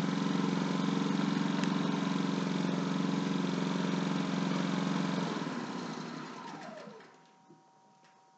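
Ryobi 4000-watt open-chassis inverter generator running steadily, then winding down and stopping: its pitch falls and the sound dies away about five to seven seconds in.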